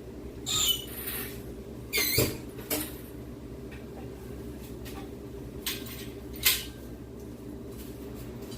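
Scattered metal squeaks and clanks from the engine and its lifting gear as the engine is eased down out of the truck, the loudest a squeak with a knock about two seconds in, over a steady low hum.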